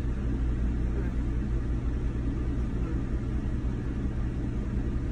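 Steady low rumble with a constant hum from running machinery.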